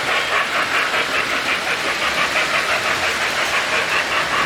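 Model steam locomotive's onboard sound system chuffing in a quick steady rhythm as the train runs around the layout.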